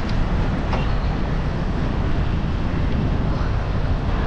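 Steady low wind rumble on the microphone of a camera riding on a moving bicycle.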